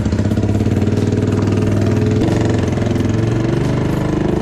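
Engine of a 300cc two-seater ATV running steadily at low speed as the quad is ridden slowly.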